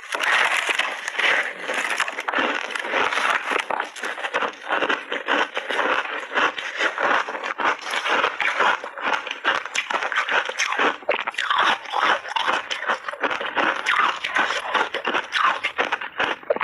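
A person chewing a mouthful of crunchy layered ice, close-miked: a dense, unbroken run of sharp crunches and crackles.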